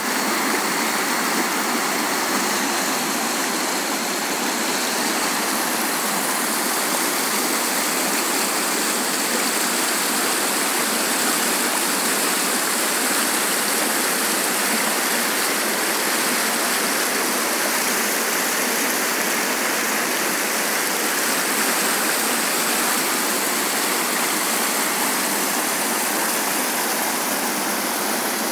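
A fast river rushing over rocks and rapids, a steady, unbroken rush of white water.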